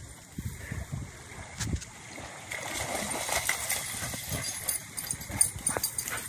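Small waves lapping at a sandy river shore, with irregular low thumps throughout.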